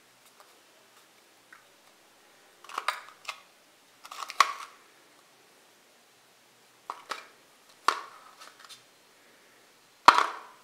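Hard lemon drop candies clicking and clattering against each other and the metal tin as fingers stir and pick them out, in about five short bursts, the sharpest clack near the end.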